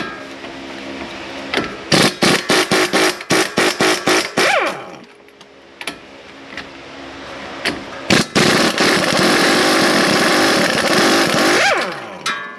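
Impact wrench on a 21 mm nut: a rapid hammering for about three seconds that winds down with a falling whine. After a pause with a few clicks, a second run of about three and a half seconds also winds down with a falling whine.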